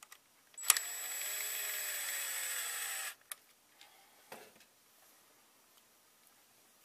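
Cordless drill/driver running for about two and a half seconds to drive a screw into the case, starting with a sharp click and carrying a steady high whine, followed by a few faint knocks as the case is handled.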